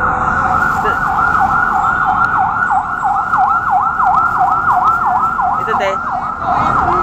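A loud electronic siren yelping, its pitch sweeping quickly up and down about three times a second without a break.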